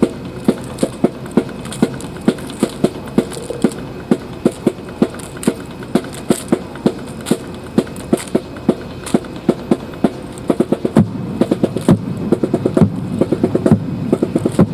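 Fancy drill team performing: sharp beats in a steady marching rhythm, about two a second. About eleven seconds in, the beats grow denser and louder over a low rumble.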